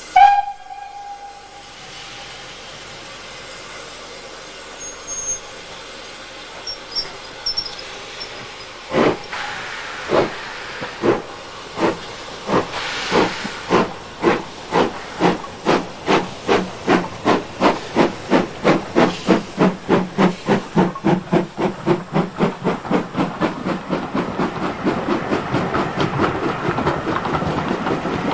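Steam locomotive gives a short whistle, then hisses steadily while standing. About nine seconds in it starts away: slow, heavy exhaust beats that quicken steadily until they blur into a continuous chuffing as the train gathers speed.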